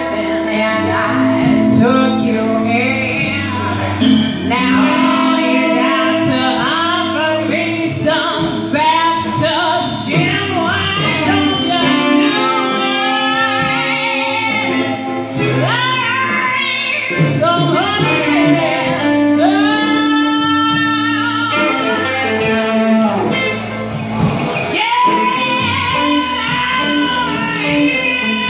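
Live blues band playing: a woman singing over electric guitars, bass and drums, with long bending notes held around the middle.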